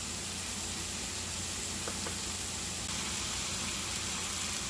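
Steady sizzling of pork loin with diced apples and onions frying in a cast-iron skillet, the apples and onions cooking down to caramelize.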